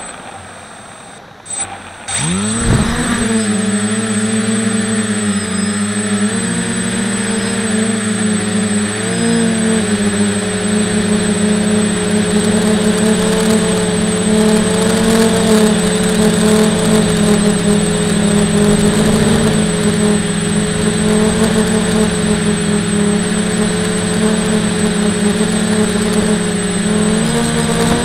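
A small multirotor drone's electric motors and propellers spin up quickly about two seconds in, then run at a steady pitch as it flies, with a thin high whine above. Its propellers are unbalanced, which makes the flight rough.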